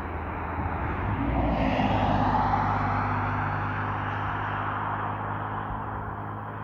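A car driving past on a paved highway, its tyre and engine noise swelling to a peak about two seconds in and then slowly fading away, over a steady low hum.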